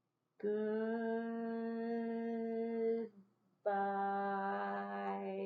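A woman singing 'goodbye' very slowly, drawn out into two long held notes at much the same pitch, with a short break between them.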